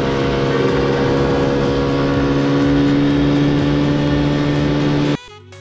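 Motor scooter engine running at a steady cruise, with wind and road noise over it. It cuts off abruptly near the end.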